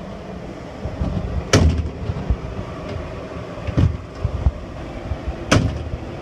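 RV cabinet doors being opened and let swing shut, snapping closed onto their magnetic latches with three sharp clacks about two seconds apart, over a steady low rumble.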